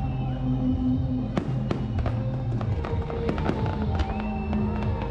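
Music with sustained bass and held notes, with sharp cracks and pops scattered through it, several of them in the second half.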